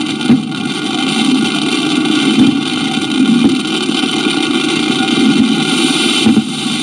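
Truck-mounted fireworks display firing off a continuous barrage of crackling and popping, with a sharper bang just after the start and another near the end.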